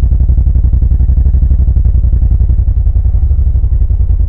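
Suzuki Intruder VL1500 LC's V-twin engine running steadily with a deep, even pulsing exhaust note.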